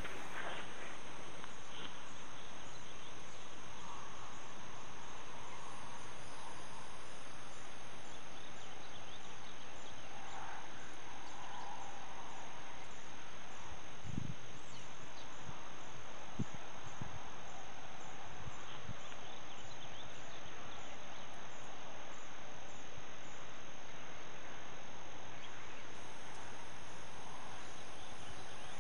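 Crickets chirping steadily in an even, high-pitched pulse, with a couple of soft low knocks around the middle.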